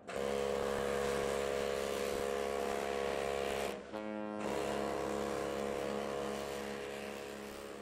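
Ship's horn blowing a deep, steady, multi-toned blast over a rushing noise, broken off briefly about four seconds in, then sounding again and slowly fading.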